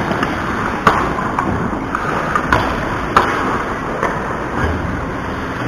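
Ice hockey play on the rink: a steady scraping wash of skates on ice, broken by about five sharp clacks of sticks and puck.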